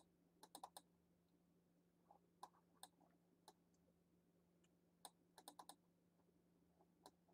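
Near silence broken by faint, scattered computer mouse clicks, some in quick runs of three or four, over a faint steady electrical hum.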